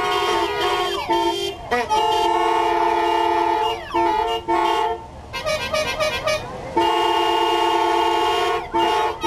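Many car horns sounding together in held chords, as part of a horn concerto, with a few gliding pitches. About halfway the chord breaks into a quieter passage of short, rapidly repeated toots, then the loud held horn chord comes back.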